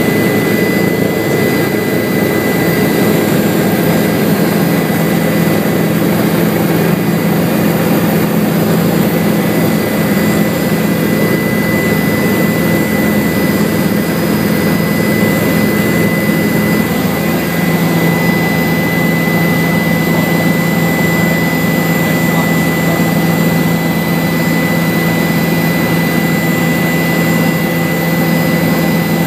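Helicopter in flight heard from inside the cabin: steady engine and rotor drone with a constant high whine over it. The low hum shifts slightly in pitch a little past halfway.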